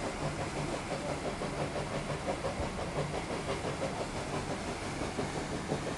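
Paddle steamer under way, its steam engine and paddle wheels running with a steady rhythmic beat.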